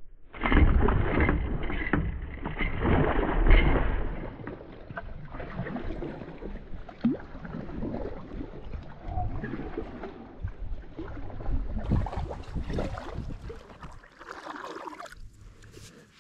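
Canoe paddle strokes in the water, with gurgling and splashing along the hull. It opens with a few seconds of loud rushing noise.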